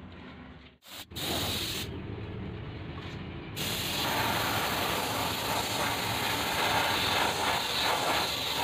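Compressed-air paint spray gun hissing as it sprays paint onto car bodywork, the hiss growing louder and steadier about three and a half seconds in.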